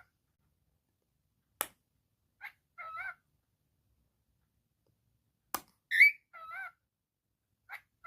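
Cockatiel whistling in short phrases: each phrase opens with a sharp click, then a brief note and a short warbling whistle. The phrase comes twice, the second with a louder note about six seconds in.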